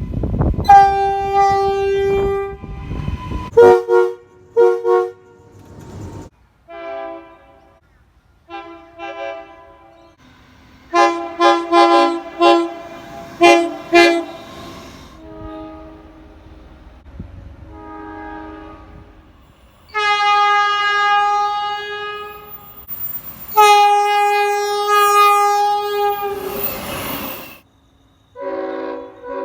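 Train air horns sounding a series of blasts, long and short, in several different pitches and chords as clips of different trains follow one another. Long blasts about a second in and again past the middle, and a cluster of short toots in between; a low rumble underlies the first few seconds.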